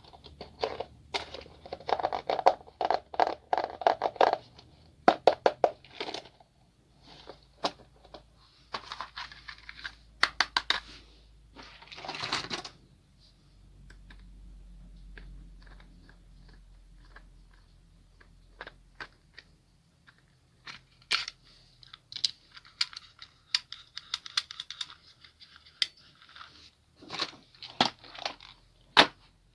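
Toy packaging being opened and handled: plastic and cardboard crinkling and tearing, with irregular runs of sharp clicks and rattles between quieter pauses.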